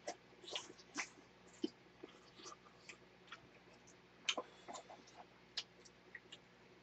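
Faint, scattered clicks of eating: mouth sounds of chewing and spoons touching the skillet and bowl, a dozen or so soft ticks at irregular intervals.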